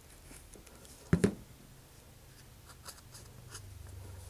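A plastic wood-glue bottle set down on the work surface, a sharp double knock about a second in, then soft scraping, rustling and small ticks as glued balsa wing panels are handled and pressed together on a plastic sheet.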